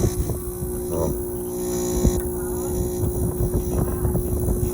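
Compressor of a Midea EcoMaster split air-conditioner condenser running with a steady hum and a rough, rattling vibration underneath. The compressor sits off its rubber anti-vibration mount, directly on the metal washer, so it shakes against the casing, an assembly fault that makes the unit unbearably noisy.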